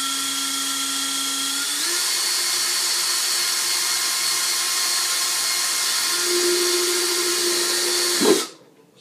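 Cordless drill boring a hole through the soft HDPE plastic of a helmet, its motor running with a steady whine that steps up in pitch about two seconds in. It cuts off abruptly with a short knock near the end.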